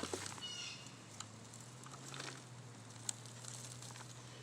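Faint rustling and crumbling of soil and potato plants as potatoes are pulled out by hand, with scattered small clicks and one sharper tick about three seconds in, over a faint steady low hum.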